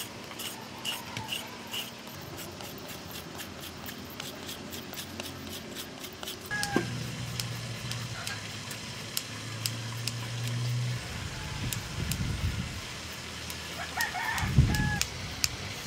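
Hand-grating a carrot: quick, irregular scraping clicks, with chickens clucking in the background, briefly about six seconds in and again near the end. A low steady hum runs through the middle.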